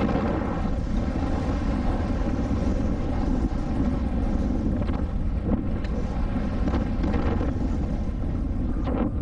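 Mountain bike ridden fast down a dirt trail: steady wind rush on the microphone over the tyre noise, with a few brief clatters.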